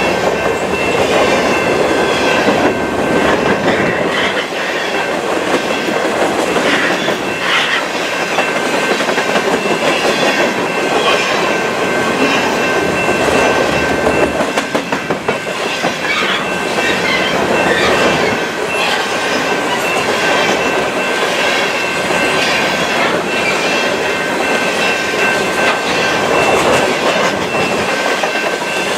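Grain train's covered hopper cars rolling past, the wheels clicking and clunking over the rail joints. A thin, steady high squeal from the wheels on the rail runs under it.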